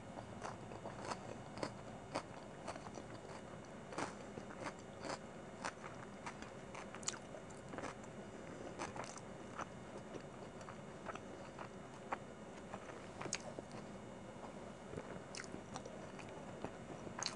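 Close-miked chewing of chicken biryani, with wet mouth clicks and smacks coming irregularly, a few a second.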